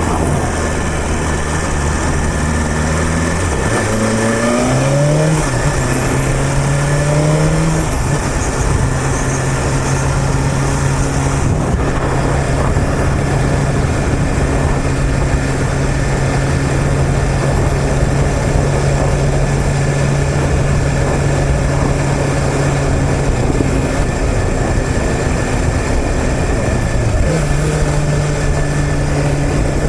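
BMW S1000RR's inline-four engine pulling up through the gears, its pitch climbing in steps, then running at a steady cruise under a constant rush of noise. Near the end the pitch dips briefly and picks up again.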